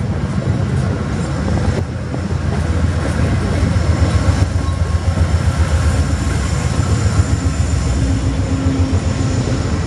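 Amtrak passenger train passing close by: coaches rumbling and clacking over the rails, then the trailing GE P42 diesel locomotive's engine adding a deeper drone and hum as it goes past in the second half.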